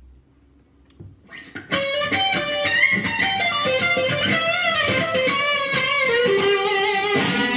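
Electric guitar, a Fender Stratocaster, playing a bluesy G minor lead lick full of string bends, slides and vibrato, with notes bent deliberately a little sharp or flat of pitch. It starts about a second in with a few light plucks and ends on a long held note with vibrato.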